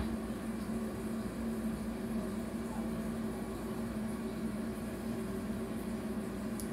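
Steady low mechanical hum with a constant pitch and a faint hiss above it, holding even throughout.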